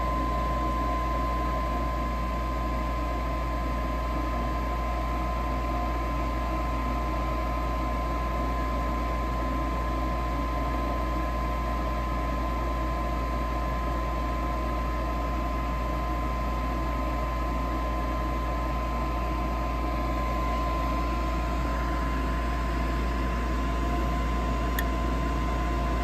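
Draft inducer motor of an Airtemp two-stage gas furnace running steadily after start-up, a low hum with a steady high tone over it, while it pre-purges and proves the pressure switch before ignition.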